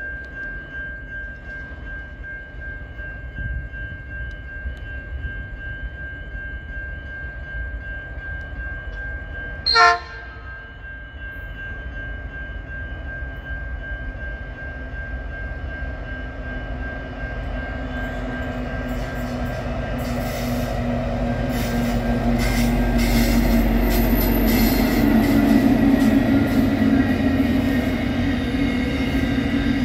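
Diesel freight locomotive hauling a grain train, giving one short blast of its horn about ten seconds in. After that the engine and the rolling wagons grow steadily louder as it comes past, with wheel clatter on the rails.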